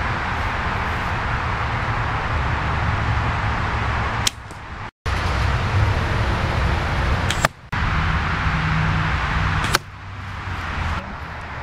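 Wind buffeting the microphone, broken three times by sharp snaps from shooting a Hoyt compound bow and its arrows hitting a bag target. The sound drops away abruptly after each snap.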